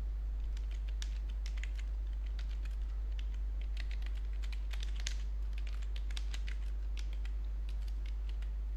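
Computer keyboard keys clicking as a line of text is typed, irregular keystrokes about three a second, over a steady low hum.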